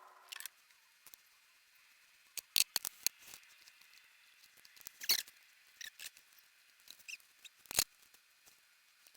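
Hand sewing nylon webbing: a needle pushed through the stiff strap and thread pulled after it, giving irregular short scratchy clicks and rasps, a few of them sharper.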